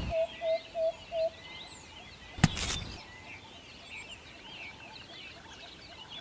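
Birds chirping in the background. A short run of evenly spaced beeping tones, about three a second, stops after the first second or so, and a single sharp knock comes about two and a half seconds in.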